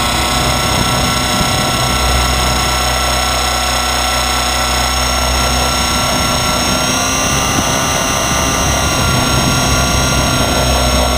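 Onboard sound of an Align T-Rex 550 electric RC helicopter in flight, heard from a camera on its frame: a steady, loud whine from the brushless motor and drivetrain over the low beat of the main rotor. The pitch shifts slightly a few times in the second half as the helicopter manoeuvres.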